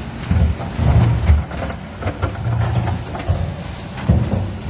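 Excavator engine running under load, with scraping and irregular knocks as its steel bucket works over rocks and ice.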